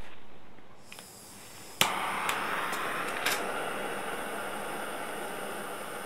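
Small handheld butane torch lit with a sharp click about two seconds in, then the steady hiss of its flame, with a few lighter clicks over the next second and a half. The flame is used to melt the end of a silver wire into a ball.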